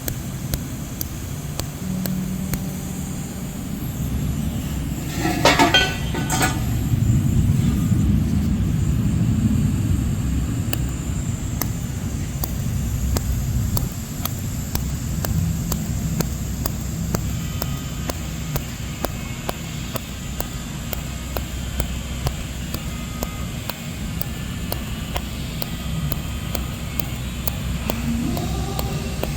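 TIG welding on sanitary stainless tubing by the dab (walk-and-dip filler) method: a steady low hum from the welding setup with a light crackle of the arc. A brief louder rasp about five seconds in.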